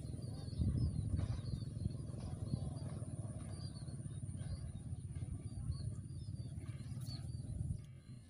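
A low, uneven rumble of wind on the microphone, with small birds giving short, high chirps now and then.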